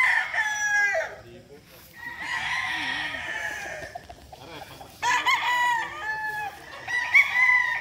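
Gamecock roosters crowing, several birds in turn with some calls overlapping, a fresh crow every two to three seconds.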